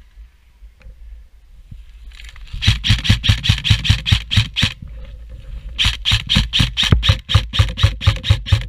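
Airsoft gun firing two strings of rapid shots, about six a second: one of about two seconds, then after a short pause a second string of nearly three seconds.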